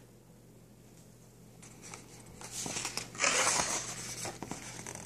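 Paper rustling as a picture book's page is turned, loudest about three seconds in.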